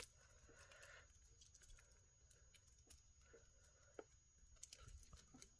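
Near silence: room tone with a few faint clicks from a glass-bead necklace and its metal hook clasp being handled.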